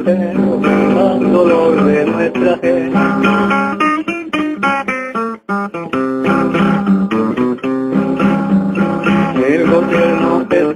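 Background music on strummed acoustic guitar, with a brief break about five seconds in.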